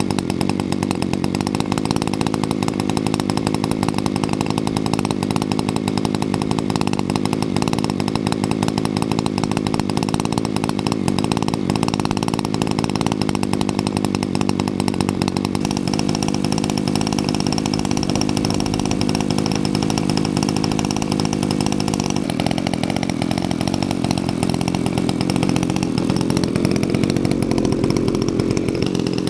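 NGH GT35 35cc single-cylinder two-stroke gas engine on an RC model plane running on its first break-in run, with the propeller spinning. It holds a steady speed, then the revs drop about two-thirds of the way through and climb again near the end.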